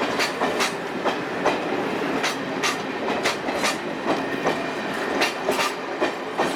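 Passenger coaches of an ICF-built rake rolling past at low speed as the train pulls away, their wheels clacking over rail joints in quick, irregular clicks over a steady rumble.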